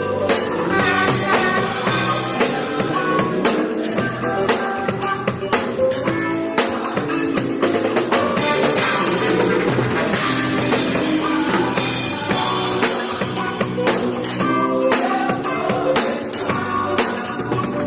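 A church praise band playing live, with a drum kit keeping a steady beat under guitar and other instruments.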